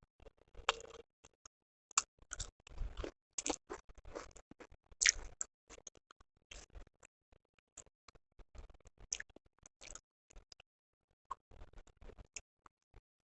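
Close-miked chewing and mouth sounds of a person eating chicken curry with rice and roti: irregular short clicks and smacks, busiest in the first half and sparser later.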